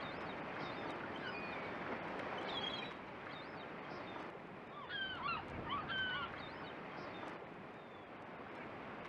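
Birds calling over a steady rushing wash of noise, with a cluster of short chirps near the middle.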